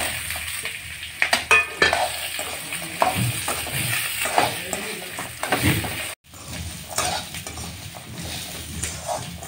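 Whole tomatoes and chopped coconut hit a kadai of frying spices, dals and shallots, which sizzle in a little oil while a perforated steel spoon stirs and scrapes them against the metal pan in irregular strokes. The sound cuts out for a moment about six seconds in.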